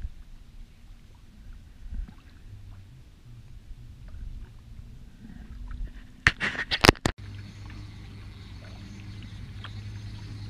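Faint handling noise in a canoe, then, about six seconds in, a quick cluster of sharp knocks and a splash as a small bluegill is tossed back into the water. After that comes a steady low hum.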